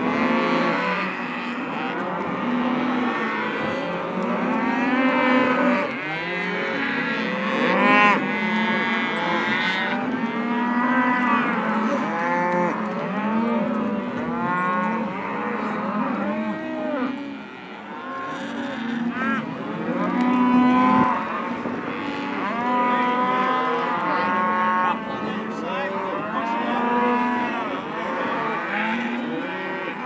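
A large herd of cattle mooing, many calls overlapping one another without a break.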